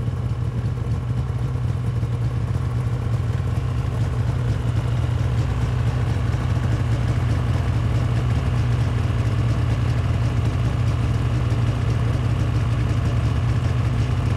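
Snowmobile engine idling steadily, a constant low hum.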